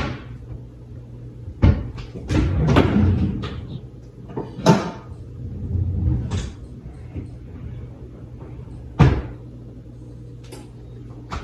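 Kitchen cupboard doors opening and shutting, with four sharp knocks spread over the stretch and clattering between them as cookware is rummaged through.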